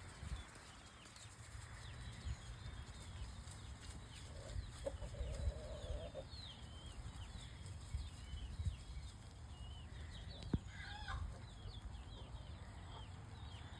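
Chickens clucking and calling, with many short high chirps throughout, a held call about five seconds in and a louder call near ten seconds, over a low rumble.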